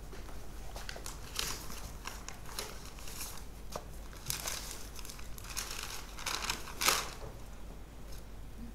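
Paper crinkling and rustling as a folded note is opened and unfolded by hand, in a run of irregular crackles, the loudest near the end.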